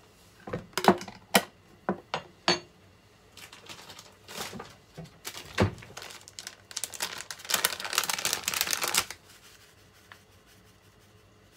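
A few sharp clicks and taps, then a plastic packet of dried aosa seaweed flakes crinkling and rustling for several seconds as it is handled and opened.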